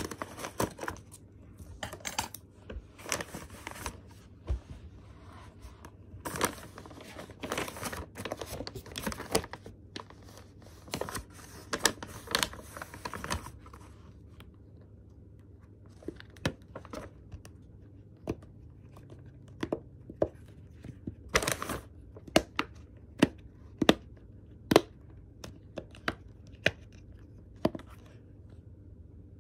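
Paper envelope being torn and crinkled open, with dense crackling rustle for about the first half. Then a run of separate sharp clicks, about one a second, while a silicone dimple fidget toy is taken out and handled.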